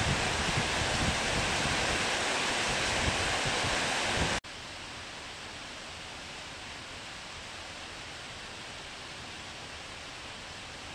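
Heavy rain pouring down, a loud steady hiss with wind buffeting the microphone. About four seconds in it cuts off abruptly to a much quieter, steady background hiss.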